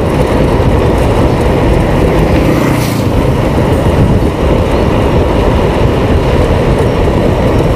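Loud, steady wind noise on the microphone of a camera riding on a moving bicycle.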